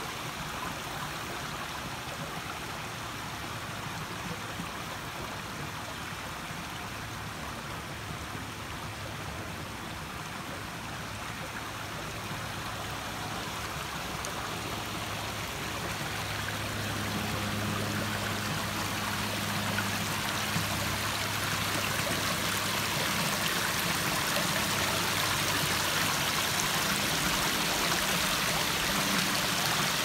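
Water trickling and splashing into a rock-edged garden pond, a steady rush that grows louder over the second half.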